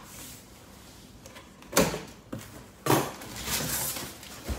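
Rummaging in a cardboard shipping box: a few sharp knocks and thumps, about two and three seconds in and again near the end, with rustling of packaging between them.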